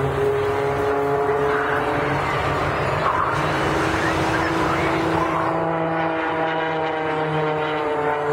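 Aerobatic biplane's piston engine and propeller running hard overhead, its pitch drifting and sliding down over the last few seconds as the plane dives and turns through its manoeuvres.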